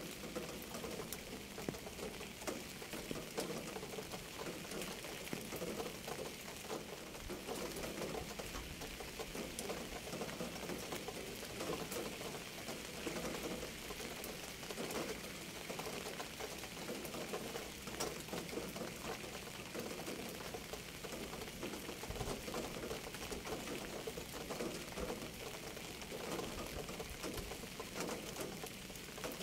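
Steady rain falling, with many separate drops ticking through an even hiss of rainfall.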